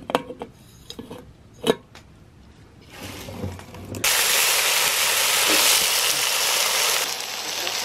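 A few light clinks and knocks as an enamel coffee pot and its lid are handled. About four seconds in, a loud steady sizzle begins: diced potatoes frying in a cast-iron skillet over a wood fire.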